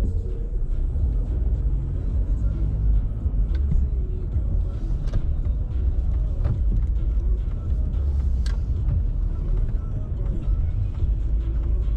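Car interior low rumble of engine and tyres as the car drives slowly, heard inside the cabin, with a few light clicks scattered through it.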